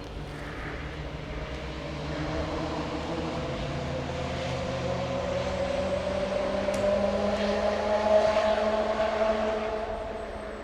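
A motor engine running: it grows louder while its pitch slowly rises, is loudest about eight seconds in, then fades near the end.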